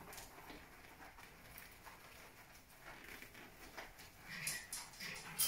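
Hands massaging shampoo into a wet poodle's coat in a grooming bath: soft, wet, irregular rubbing and patter, louder and choppier for the last second or so.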